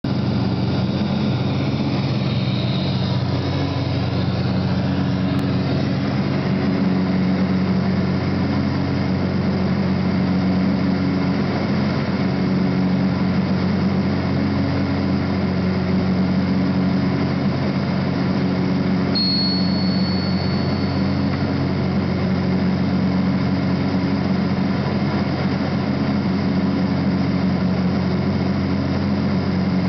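Steady drone of a light propeller aircraft's engine and propeller in cruise, heard inside the cabin. A thin high tone comes in briefly about two-thirds of the way through.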